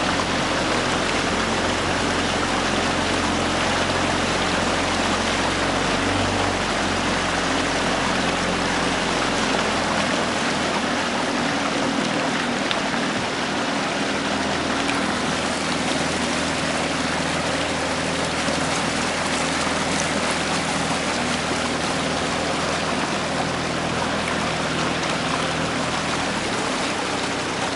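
A small boat's motor running steadily at low speed: a low hum under a constant rushing hiss of water and wind. The deepest part of the hum drops away about ten seconds in.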